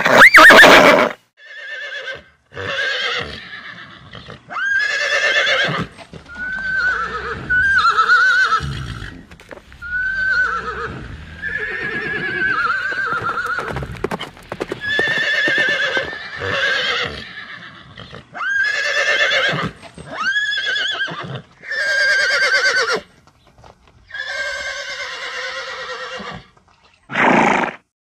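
Horses whinnying and neighing: about a dozen separate calls of one to three seconds each with short pauses between, their pitch quavering up and down, the loudest right at the start.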